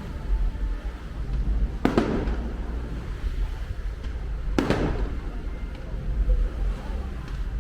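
Fireworks bursting overhead: two sharp booms, about two and about four and a half seconds in, each trailing off briefly, over a steady low rumble.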